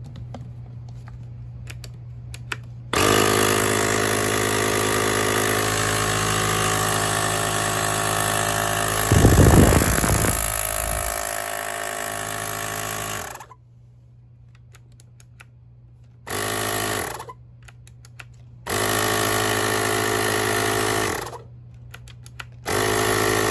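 Kensun AC/DC portable tire inflator's electric air compressor switched on, running steadily for about ten seconds with a brief louder rumble partway through, then cut off and switched back on for three short runs near the end.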